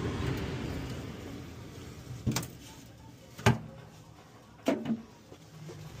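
A low steady hum from the open gas furnace fades over the first few seconds. Sharp knocks from handling at the metal cabinet come about two seconds in, again a second later, and as a close pair near the end.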